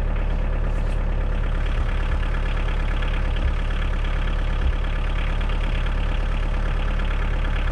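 Kioti DK40SE tractor's diesel engine running steadily at an even, low speed.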